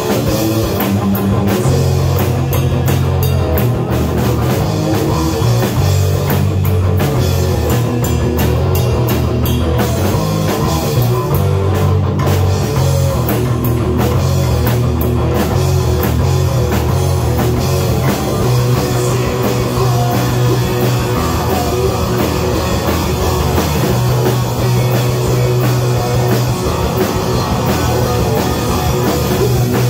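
Live rock band playing loud: electric guitar, electric bass and drum kit, with cymbal crashes through the first half.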